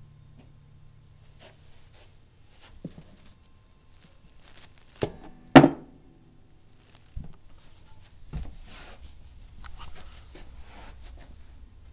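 Handling noise in a guitar case: scattered rustling and light knocks, with one loud knock a little before halfway followed by a brief low ringing.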